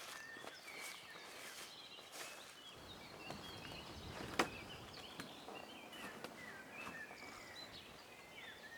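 Birds calling faintly, a steady scatter of many short chirping notes, with a single sharp click about four and a half seconds in.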